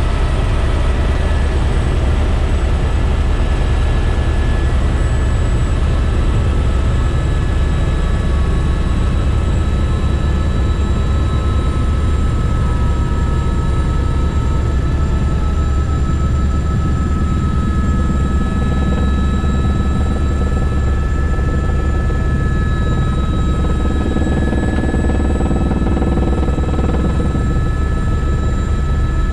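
Helicopter in flight, heard inside the cabin: a loud, steady drone of rotor and engine with constant high-pitched whining tones over it.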